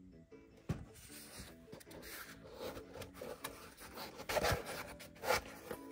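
Hands handling a white leather UNDERCOVER x Nike Moc Flow sneaker and its removable insole: leather and foam rubbing and scraping, with a few short knocks, the loudest past the middle.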